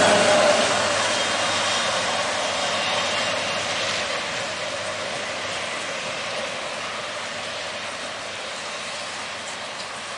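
Norfolk Southern freight train's wheels rolling on the rails, a steady rumbling noise that fades gradually as the rear of the train moves away.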